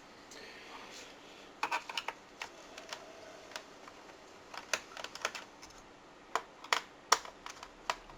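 Irregular sharp clicks and taps of a screwdriver working small screws out of the underside of a laptop, with a few louder knocks in the second half.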